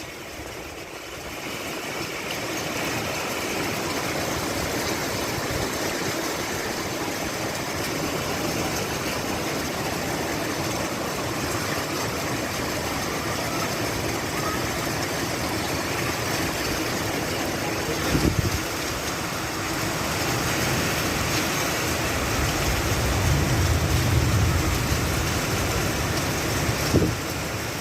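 Steady hiss of rain falling, with a few brief low bumps partway through and near the end.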